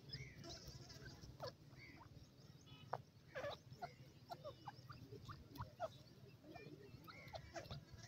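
A young grey francolin giving faint, short calls: quick falling chirps repeated at irregular intervals.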